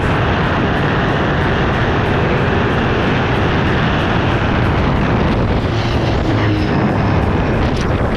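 Loud, steady rushing noise from a boat running at speed, its engine drone blended with wind and water.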